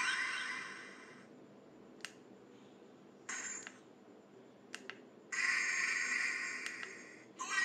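Bootleg Ultraman Taro badge toy playing electronic sound effects through its tiny, thin-sounding speaker. A sound fades out in the first second, sharp button clicks come in between, a short blip plays about three seconds in, and a longer effect starts about five seconds in and stops just before the end.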